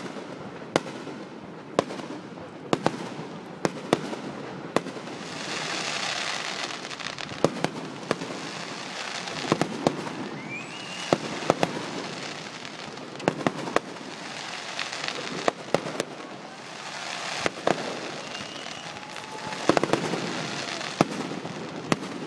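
Aerial fireworks bursting in a run of sharp bangs, about one a second, with two stretches of dense crackling and a short rising whistle about eleven seconds in.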